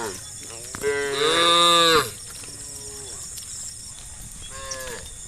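Cattle mooing: one loud, long moo about a second in, among shorter, fainter moos.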